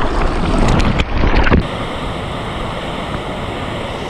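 Water splashing with sharp slaps for about the first second and a half, then a sudden change to a steady rush of moving water.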